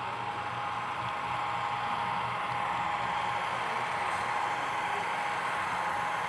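HO-scale Santa Fe F7 model diesel locomotives passing close, a steady rushing sound of the locomotives' sound-decoder diesel engine sound and wheels rolling on the rails, growing slightly louder as the train nears.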